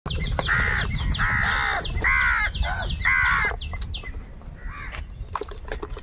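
House crows cawing: five loud, harsh caws in quick succession over the first three and a half seconds, then fainter calls, with scattered sharp clicks.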